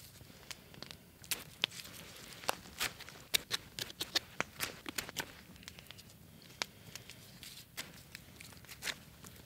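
Knife blade whittling a wooden stick: an irregular run of short, sharp scrapes and clicks as shavings come off the wood.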